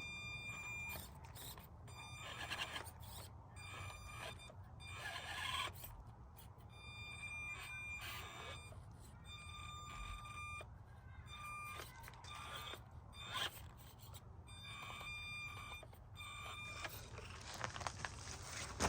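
Axial SCX24 micro RC crawler's electric motor whining in stop-start bursts of throttle as it climbs, the high steady whine switching on and off every second or so.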